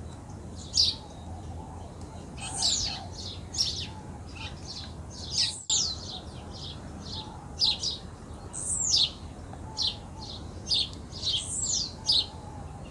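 Small songbirds chirping and singing over and over, in short high notes and quick downward-sweeping calls, over a low steady background rumble.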